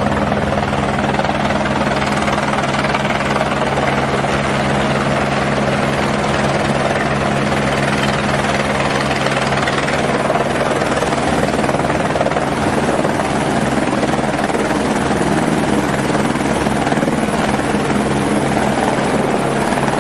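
Turbine helicopter hovering in and landing on a pad, its main rotor and engine running loudly and steadily with a low, even hum.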